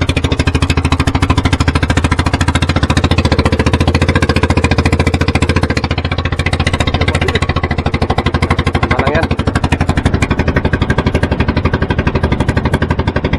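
Outrigger fishing boat's engine running steadily at trolling speed, a loud, fast, even chugging beat.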